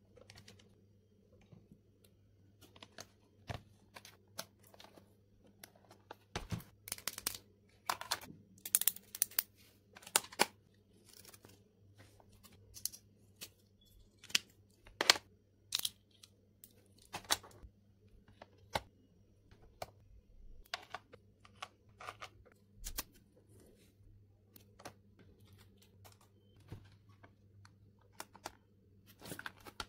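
Plastic stationery handled close up: irregular clicks and taps of pen caps, pens and a plastic pencil box, a busy run of them in the first half. A faint steady low hum runs underneath.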